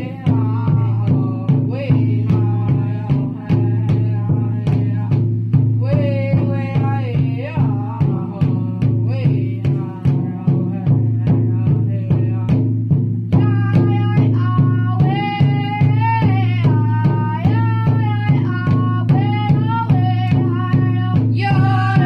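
Indigenous drum song: a voice sings over a steady, even drumbeat.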